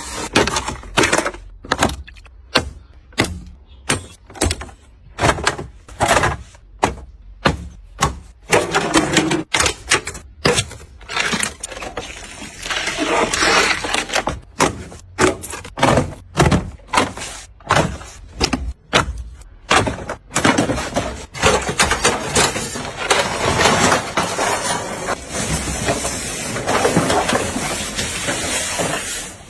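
A series of sharp knocks or impacts, about one to two a second, followed after about twenty seconds by denser, more continuous clattering noise.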